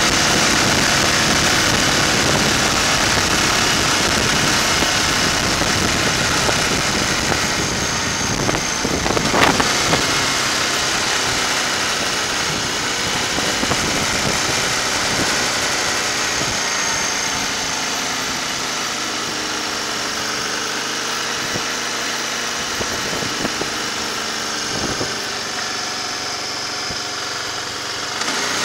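Motorcycle engine running steadily at low road speed, mixed with a constant rush of wind and road noise. There is a single sharp click about nine and a half seconds in, and the sound eases off gradually toward the end.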